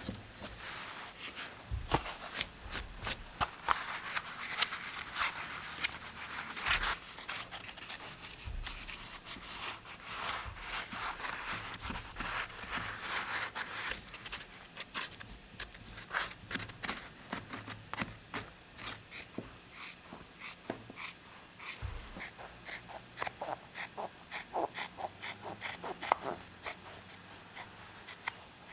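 Hand tool working a bicycle saddle: a rapid, irregular series of short scraping strokes, busiest in the middle.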